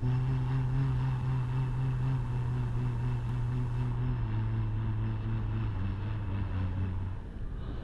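Steady vehicle engine and road drone heard from inside the cabin, its note dropping slightly about four seconds in.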